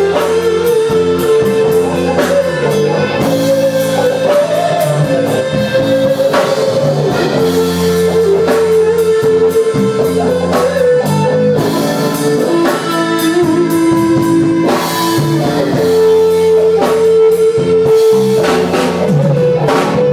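Live rock band playing, led by an electric guitar holding long, slightly bending notes over drum kit and backing.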